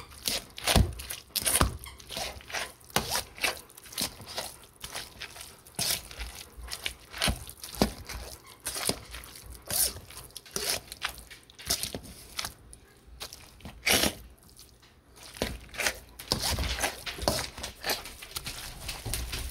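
Hand potato masher working through boiled sweet potatoes and carrots in a stainless steel bowl: irregular squishing strokes with scrapes and knocks against the bowl, about one or two a second.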